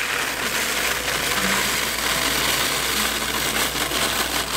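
Flaked brewing grains (oats, barley and wheat) pouring from a metal tray into a paper bag, a steady dry rushing rustle, with the paper bag crinkling as it is handled.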